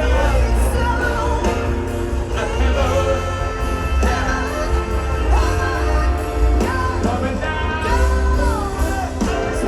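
Rock music with singing: a voice holds long, bending notes over a full band with strong bass.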